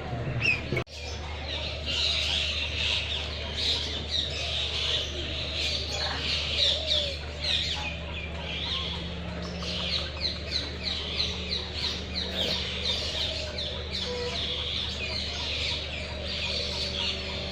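Many aviary birds chirping at once, a dense continuous chatter of short high calls over a low steady hum.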